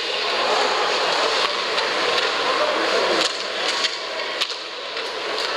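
Ice hockey game sound: steady arena crowd noise with skates scraping the ice and several sharp clacks of sticks and puck.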